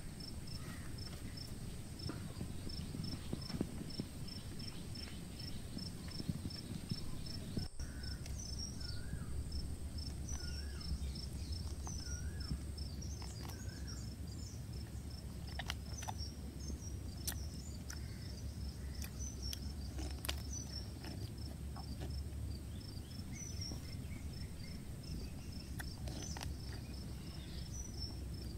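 Insects chirping in a steady high pulse, about four pulses a second, over a low outdoor rumble, with a thin steady whine through the first half. A few short wavering whistled calls come in near the middle, and there are scattered sharp clicks.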